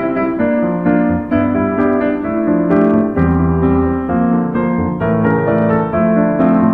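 Background music led by piano, a steady run of notes and chords changing every half second or so.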